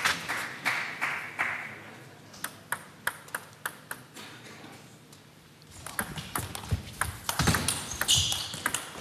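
Table tennis ball clicking: bounced on the table at about four bounces a second before a serve, then from about six seconds in struck back and forth in a rally with sharp bat hits and table bounces.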